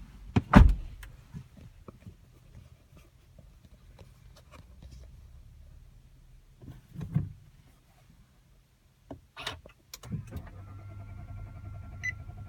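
Inside a Nissan Qashqai: a loud thump about half a second in, then scattered clicks, and from about ten seconds in a steady electric motor hum with a single short chime near the end.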